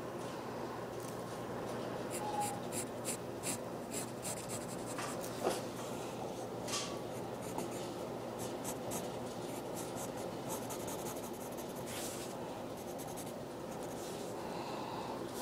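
A pen scratching on paper as lines are drawn, in a quick run of short strokes through the first half, then a few more spaced strokes, over a steady background hiss.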